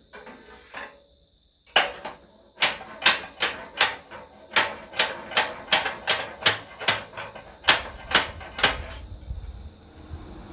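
A hammer striking steel in a series of about fifteen sharp blows, roughly two a second, starting about two seconds in and stopping shortly before the end.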